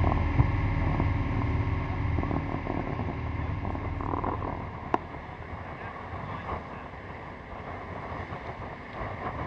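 Wind buffeting the microphone and water rushing and splashing along the hull of a sailboat under way. The low wind rumble eases off about halfway through, and a single sharp click sounds about five seconds in.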